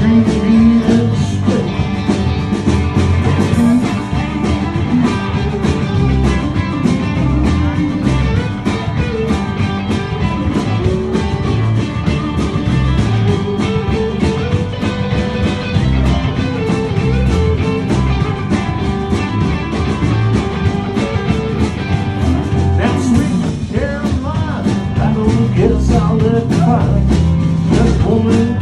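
Live country-rock band playing an up-tempo song, with drum kit and amplified electric guitar over a steady drum beat.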